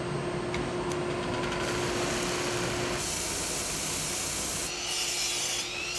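Shop machine sanding wooden baseball bats: steady motor hum with the rasp of wood rubbing on abrasive, turning harsher and hissier about halfway through.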